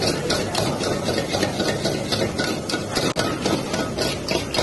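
Metal ladle striking and scraping a wok in a quick, even rhythm, about four to five strokes a second, as rice is stir-fried, over the steady rush of a high-flame gas wok burner.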